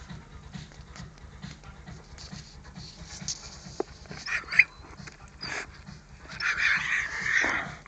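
A dog whimpering: a short high yelp about halfway through and a longer, noisier whine near the end, over a faint steady music beat.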